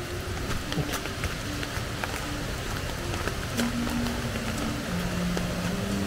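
Steady rushing of a river running over rocky rapids, with soft sustained background-music notes on top and a few light clicks.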